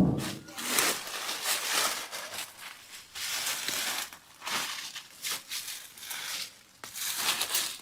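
Irregular bursts of rustling, crackling noise, each from a fraction of a second to about a second long, with no steady engine running.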